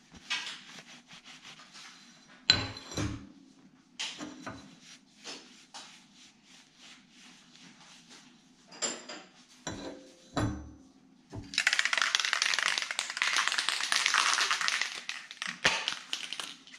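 Freshly machined aluminum wheel spacers are wiped with a cloth and set down on a steel workbench: cloth rubbing and several metallic knocks and clinks, the loudest about two and a half seconds in with a brief ring. In the second half comes about four seconds of louder, continuous scratchy noise.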